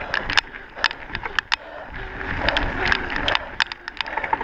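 Mondraker mountain bike riding fast down a gravel forest trail: tyres running over loose stones, with frequent sharp clicks and rattles as the bike goes over bumps, and wind on the microphone.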